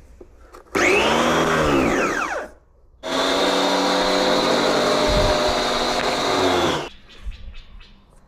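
Bosch electric pressure washer's motor running in two bursts: a short one that rises and falls in pitch, then a steady run of about four seconds that starts and stops suddenly.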